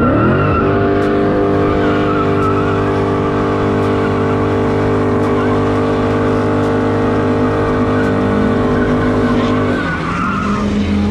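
Car doing a burnout: the engine revs up and is held at a steady high rpm for about ten seconds while the spinning rear tires squeal, then the revs drop near the end.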